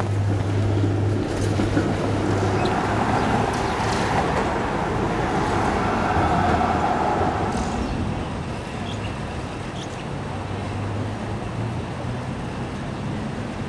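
City street traffic, a tram and cars passing close, loudest from about three to eight seconds in, over a steady low engine hum.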